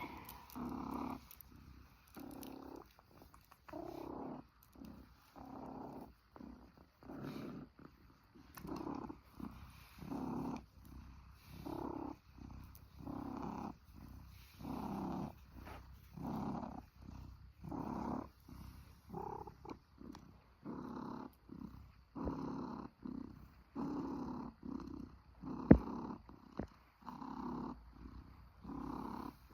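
Domestic cat purring, the purr swelling and fading about once a second with each breath in and out. A single sharp click near the end.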